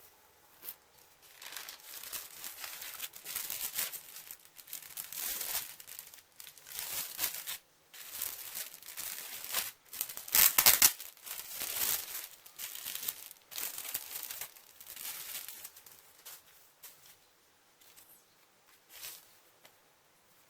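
Packaging being crinkled and torn open by hand, in irregular rustling bursts, the loudest a sharp rip about halfway through, dying down near the end.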